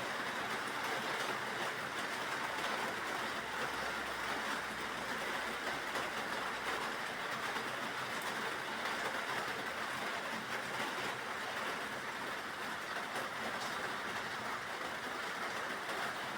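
Steady rain, an even, unbroken hiss that keeps the same level throughout.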